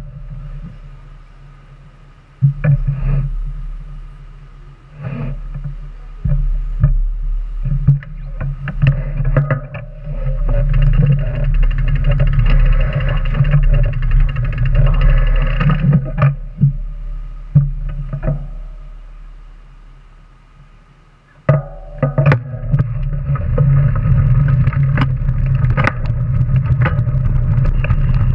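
Background music with sustained chords and sharp, guitar-like note attacks; it fades down about two-thirds of the way through and comes back in suddenly.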